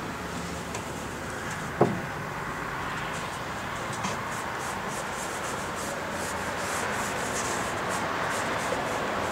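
Paintbrush bristles scratching and dabbing on a canvas, over a steady outdoor background that grows slightly louder toward the end. A short, sharp squeak falling in pitch about two seconds in.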